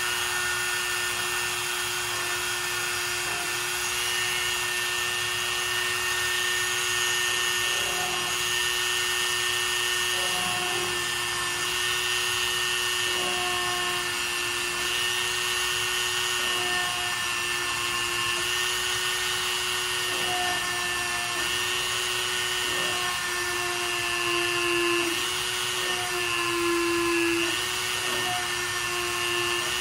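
Dremel rotary tool running through its flex-shaft hand piece, a rubber polishing tip grinding down epoxy-filled rivet heads on aluminum skin. A steady whine with small brief changes in tone every few seconds as the tip is worked over the rivets.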